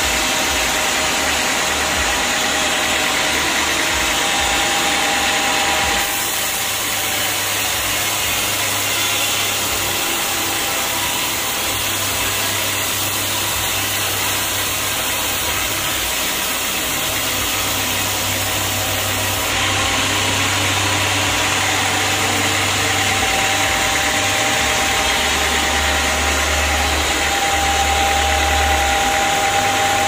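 Sawmill band saw running and cutting lengthwise through an acacia log: a loud, steady machine noise with a low hum, which shifts in tone about six seconds in and again near twenty seconds.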